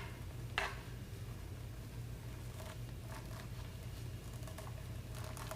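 Soft rustling of rope being handled and drawn through an overhand knot, with one light click about half a second in, over a steady low hum.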